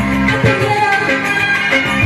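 Music with a steady beat and held melodic lines, in a Middle Eastern or South Asian pop style.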